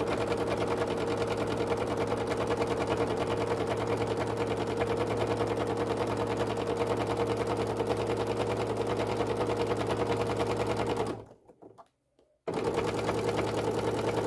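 Baby Lock Soprano sewing machine running at a steady, rapid stitching pace during free-motion stitching. About 11 seconds in it stops abruptly, is silent for about a second and a half, then starts stitching again.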